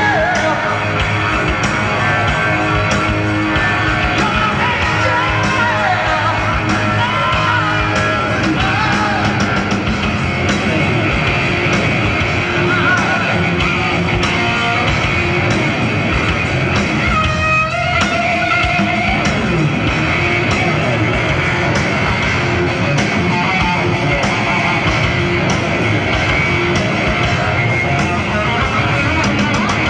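A heavy metal band playing live: electric guitar, bass and drums, with sung vocals early on, giving way to a lead electric guitar line.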